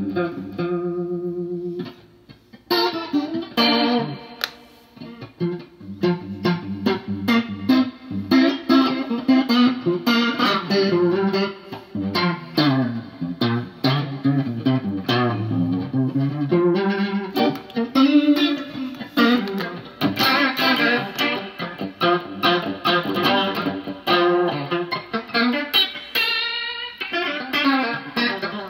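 Electric guitar played through a Danelectro Money Laundry rotary-speaker emulator pedal: a chord, a short break about two seconds in, then a busy stream of picked single notes and chords.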